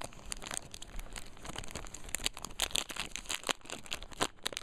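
Foil Pokémon booster pack wrapper crinkling and tearing as it is ripped open by hand, a dense run of irregular crackles.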